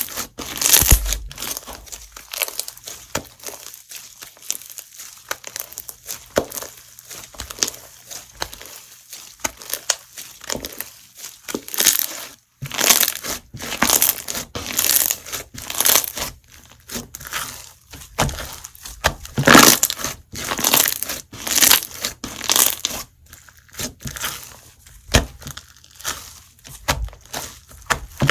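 Perlite slime being squeezed and pressed by hand, its perlite beads giving crunching, crackling bursts every second or so, quieter for several seconds early on and denser later.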